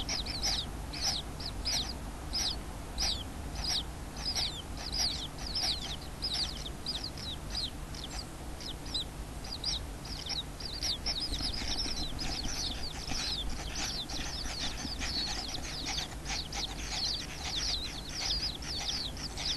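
Common kingfishers in the nest burrow giving a steady series of short, high, downward-sweeping calls, about two to three a second, which come faster and overlap from about twelve seconds in. A steady low hum runs underneath.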